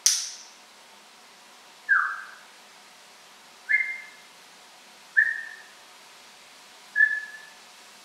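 African grey parrot whistling: five short calls about every one and a half to two seconds. The first is a sharp, high squeak; the rest are brief mid-pitched whistle notes, one of them two-toned.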